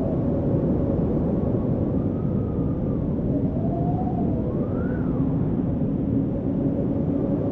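Storm wind: a steady rushing roar of air with a whistling howl that rises and falls in pitch every second or two.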